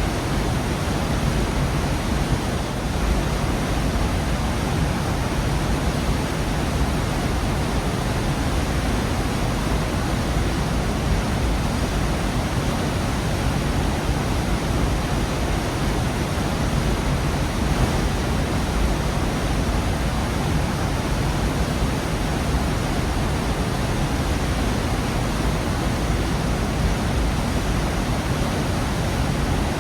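Waterfall in a rocky gorge: a steady, dense rush of falling water, unchanging throughout.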